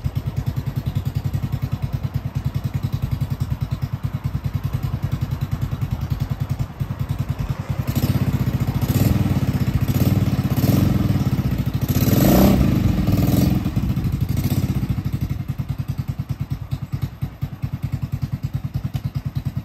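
Large Honda scooter's engine idling with a rapid, even pulse. From about eight seconds in, the throttle is blipped about half a dozen times in quick succession, and then the engine settles back to idle.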